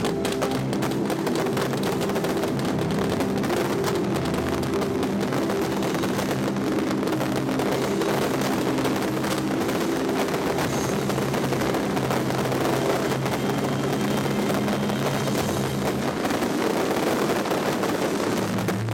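Show music played over loudspeakers, with sustained low chords that change every few seconds. Under it runs a dense, steady crackling and popping from the fireworks.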